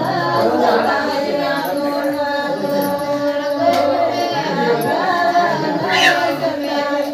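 A group of voices, most likely the women standing in line, singing a traditional Santali song together without instruments, several held notes sounding at once. About six seconds in a short, high sound rises in pitch above the singing.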